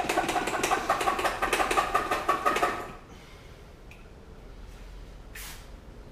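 Small hand-pump pressure sprayer being pumped up: a fast run of squeaky plunger strokes that stops about three seconds in. A couple of seconds later there is one short hiss of spray.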